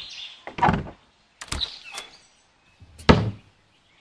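Sound effect of a heavy wooden door being opened: three separate thuds, the last and loudest near the end.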